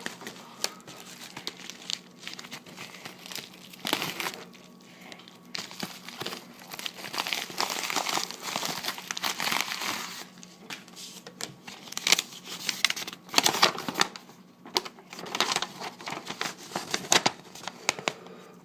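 Packaging crinkling and rustling in the hands as trading cards are unwrapped, in uneven spells with many sharp clicks.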